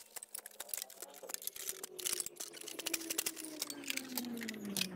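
Post-hole digger working a hole in soil under dry leaf litter: quiet crunching and scraping of earth with many small crackles. A faint hum falling slowly in pitch runs under the second half.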